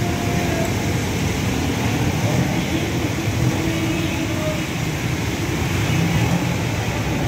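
Steady city street traffic din: motorcycles, tricycles and cars running past on a wet road, their engines and tyres mixing into one continuous noise.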